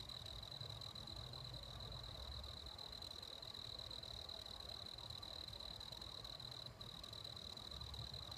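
An insect trilling steadily on one high note, breaking off for a moment near the end.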